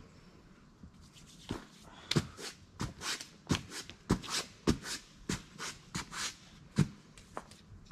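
Quick rubbing and scuffing strokes, about two a second, starting about a second and a half in and stopping shortly before the end, as hands and shoes are worked against cloth and pad while getting ready to climb.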